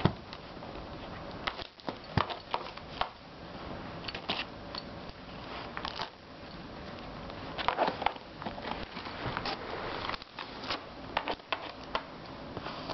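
Bichon Frise crinkling and tearing the paper on a wrapped gift box with her teeth and paws: irregular crackles and rips that come in scattered clusters.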